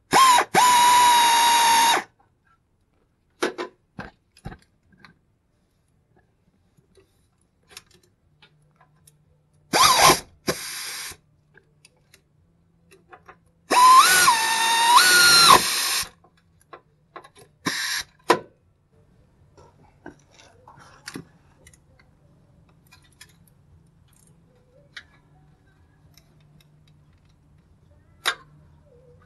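Power drill spinning a 1/4-inch socket in four short bursts, the longest about two seconds. Its motor whine rises as it spins up and drops as it stops. It is snugging up the AC hose fitting bolts on a new compressor.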